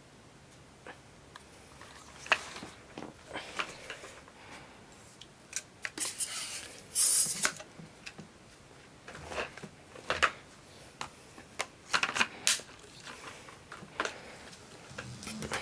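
Handling noise from the parts of a Miele canister vacuum: scattered plastic clicks and knocks with short rustles, and a longer scrape about six to seven seconds in. The vacuum's motor is not running.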